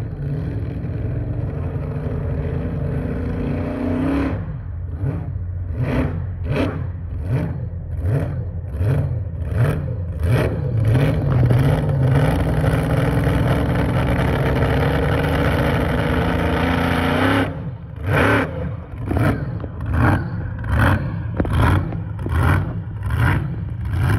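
Modified tractor-pulling tractor's racing engine at full throttle. Its pitch climbs for the first few seconds, then surges in and out, and holds a long steady high-rev run before dropping off suddenly. It ends with a string of short throttle blips, a little more than one a second.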